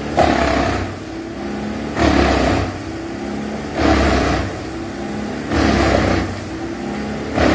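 Wood chipper running, its engine steady under load, with a louder grinding surge about every two seconds as wood goes through the drum.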